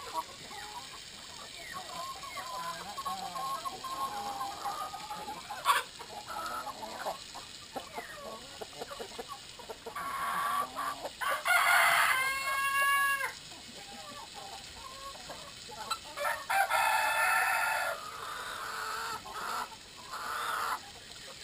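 Flock of Brahma chickens clucking steadily. A rooster crows about halfway through, and another loud, harsh call comes near the end.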